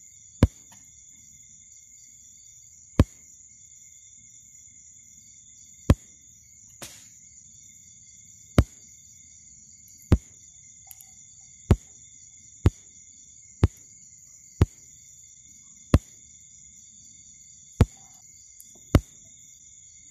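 Homemade xenon ring flash tube firing over and over, a sharp snap with each discharge, about a dozen at uneven intervals of one to three seconds. Under the snaps runs a faint steady high-pitched whine from the charging circuit.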